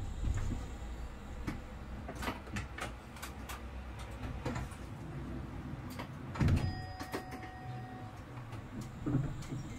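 Low rumble of a vehicle ride with scattered clicks and rattles. A louder knock about six and a half seconds in, followed by a thin steady tone lasting a little over a second.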